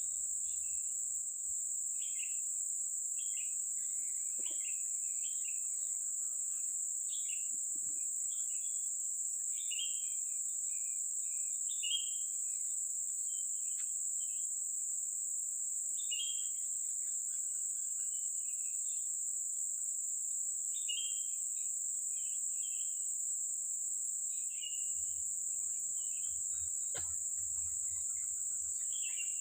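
Steady high-pitched drone of insects, with a bird chirping over it in many short calls.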